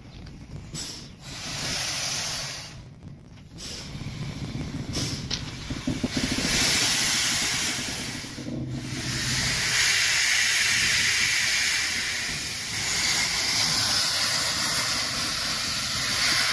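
Steam hissing from the cylinder drain cocks of a metre-gauge 0-6-0 (130T) tank locomotive as it moves at low speed during shunting. The hissing grows louder about six seconds in and stays strong.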